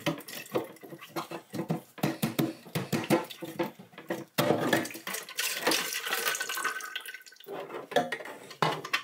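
Black plastic ABS drain pipes being unscrewed and pulled apart: the fittings knock, click and scrape, and water left in the P-trap trickles and drips into a plastic pail.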